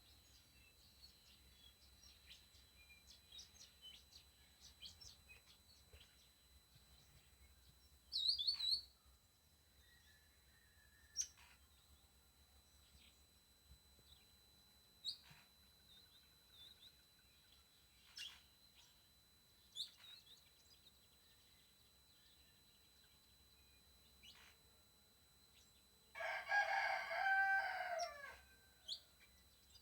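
A rooster crows once near the end, the loudest sound, with short bird chirps scattered through. Beneath them a faint, steady high-pitched whine runs on: the squeal of a TriStar TS-MPPT-60 solar charge controller.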